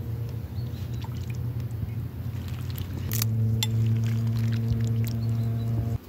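Kashk soup being ladled from a metal pot into a bowl, with a few sharp clinks of the ladle against the pot. A steady low hum runs under it and grows louder about halfway through.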